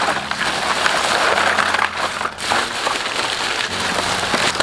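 Thin plastic shopping bags rustling and crinkling as hands rummage through them, a dense crackly rustle, with a low steady hum underneath.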